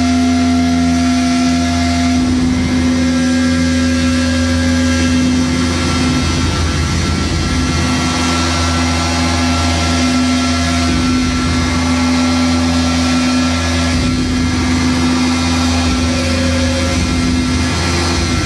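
Live harsh-noise electronic music: a loud, dense wall of droning noise over a steady low hum and a strong held drone tone, with fainter tones sliding in and out above.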